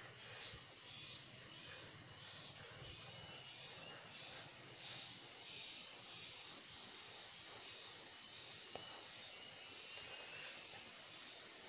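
Insect chorus: a steady high-pitched whine with a pulsing buzz above it about twice a second.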